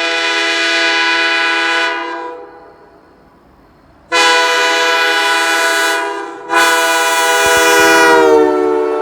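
Holden J3 locomotive air horn blowing a chord in blasts. One blast fades out about two seconds in. After a short gap, a blast starts sharply at about four seconds, and another at about six and a half seconds; its pitch dips slightly near the end and it keeps sounding.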